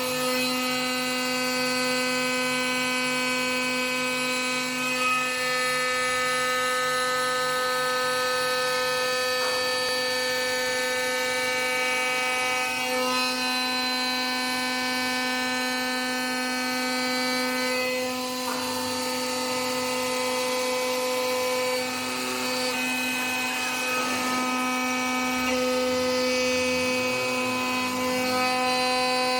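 CNC stone-working machine running: a steady whine of several held tones with a few brief dips in pitch, as of a spindle or pump motor under load.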